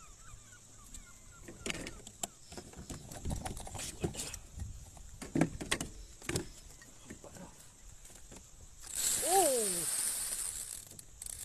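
Scattered clicks and knocks from fishing gear being handled on a kayak while a fish is played. Near the end comes about two seconds of loud rushing hiss, the loudest part, with a short sound falling steeply in pitch inside it.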